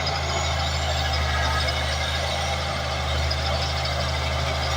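Large bulldozer's diesel engine running at a steady pitch, a low drone under an even wash of mechanical noise.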